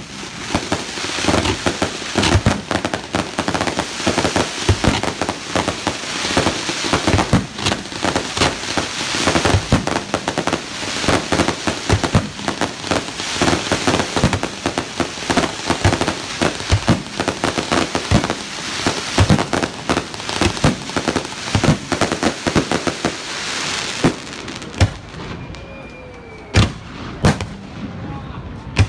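Fireworks display: a dense barrage of rapid bangs and pops. About 24 seconds in it thins out to a few separate loud booms.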